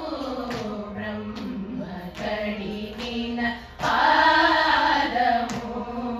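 A group of women singing in unison into microphones, a phrase ending just before the four-second mark and a louder one starting right after. Soft taps come about once a second, keeping time.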